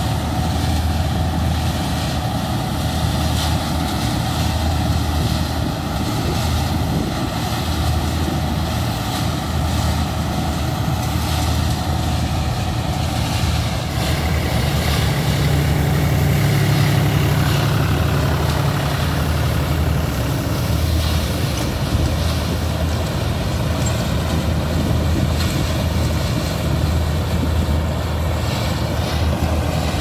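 Mahindra 930 combine harvester's diesel engine and threshing machinery running steadily while it cuts ripe rice. It gets a little louder about halfway through as the machine passes close.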